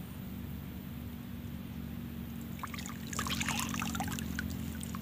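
Swamp water splashing and dripping as hands and arms are lifted out of it: a second or so of trickling and small splashes starting about two and a half seconds in.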